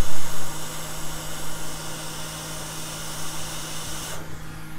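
Hot air rework station blowing a steady hiss of hot air onto a phone logic board to desolder the compass chip, over a low steady hum; the airflow cuts off suddenly about four seconds in.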